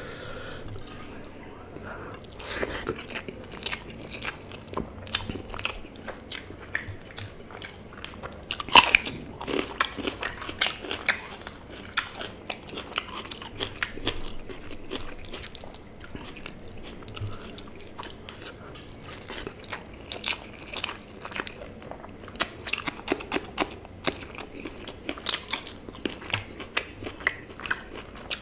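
Close-miked eating: a man chewing mouthfuls of rice with mutton and chicken curry eaten by hand, with many sharp crunching and biting clicks, the loudest about nine seconds in.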